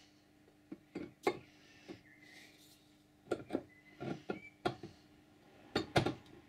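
A model steam engine cylinder, lagged in wooden strips and fitted with studs, being set down by hand onto its upright standard for a test fit: a string of light knocks, clicks and scrapes as it is placed and shifted into position.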